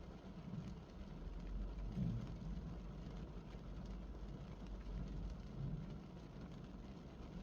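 Spring rain falling on a parked car, heard from inside the cabin as a steady low hum with a soft hiss above it. A few low swells come and go, about two seconds in and again near five to six seconds.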